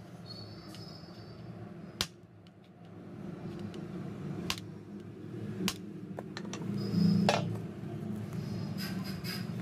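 A few sharp, separate metal clicks and taps from tools being handled on the ceiling fan parts, four in all, over a steady low hum with a brief louder rumble about seven seconds in.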